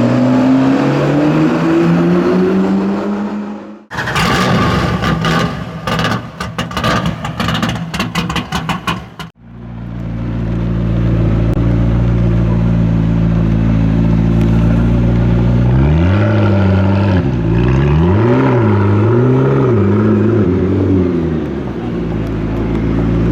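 McLaren P1's twin-turbo V8 running, its note falling in pitch over the first few seconds. A stretch of irregular sharp cracks and knocks follows for about five seconds, then the engine idles steadily and is blipped several times in the second half, the pitch rising and falling quickly, before settling back to idle.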